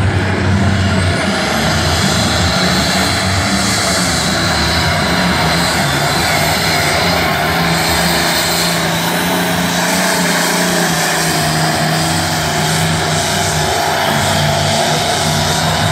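Modified diesel pulling tractor's engine running flat out under load as it drags a weight-transfer sled, loud and steady, with a high whine rising in the first couple of seconds.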